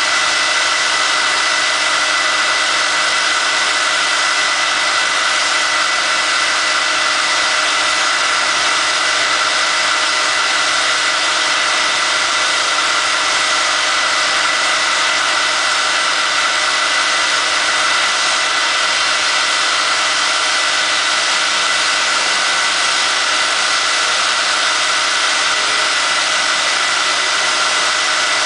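A machine running steadily: a constant mechanical drone with a few fixed hum tones, unchanging throughout.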